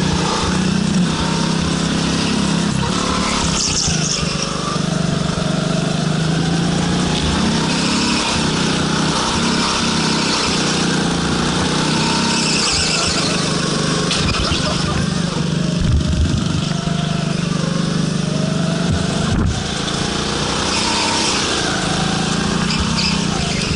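Go-kart engine running under throttle as the kart laps the track, its pitch wavering up and down through the corners.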